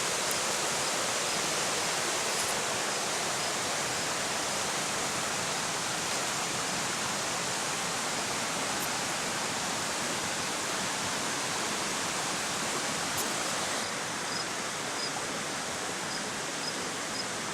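Rushing river water: a steady, even rush that becomes slightly quieter about fourteen seconds in. Near the end a faint, high cricket chirp repeats at regular intervals.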